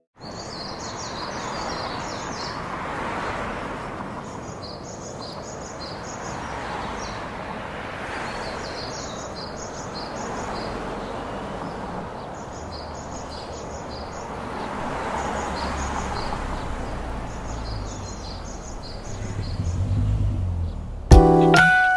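Outdoor nature ambience: small birds chirping in short bursts over a rushing noise that swells and fades every three or four seconds. A low rumble builds in the second half, and piano music comes in about a second before the end.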